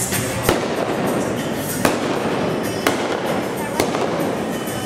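Rifle fired from horseback with black powder blanks: four sharp shots about a second apart.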